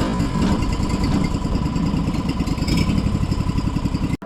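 Sawmill engine running steadily with a fast, even pulse and a thin steady whine, cutting off abruptly near the end.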